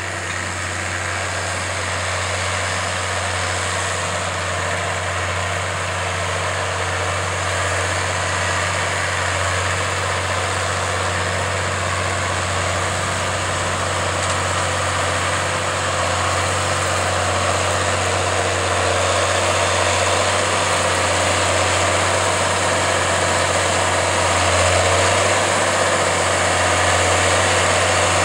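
John Deere 7810 tractor's six-cylinder diesel engine running steadily under load while pulling a plough, growing gradually louder.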